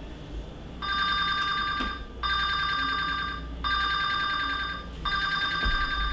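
Smartphone ringing with an incoming call: an electronic ringtone of a few steady high tones, sounding in four bursts of about a second and a quarter each with short gaps between them, the first about a second in.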